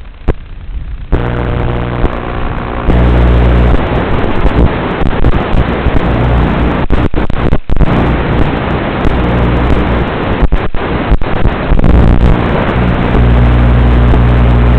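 Small FPV quadcopter's electric motors and propellers running close to the microphone: a steady multi-tone motor whine over a rush of prop wash. It starts about a second in, rises about three seconds in, eases and swells again, then cuts off suddenly near the end.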